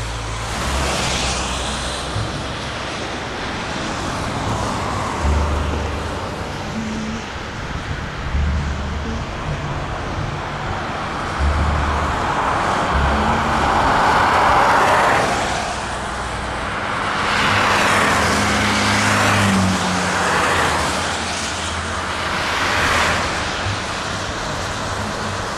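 Highway traffic: cars driving past one after another in rising-and-falling swells over a steady road noise, the loudest pass about halfway through.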